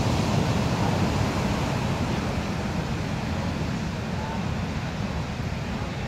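Heavy ocean surf breaking and washing ashore, a steady rushing noise, with wind buffeting the microphone.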